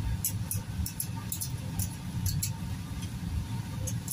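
A blade scraping the skin off a ripe papaya: short, high rasping strokes, two or three a second and often in quick pairs, over a steady low hum.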